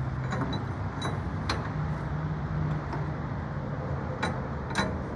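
Sharp metallic clinks and knocks as heavy-duty door hinges and their 3/4-inch dowels are handled and fitted into a hinge prop. There are about five separate strikes, the loudest near the end, over a steady low hum.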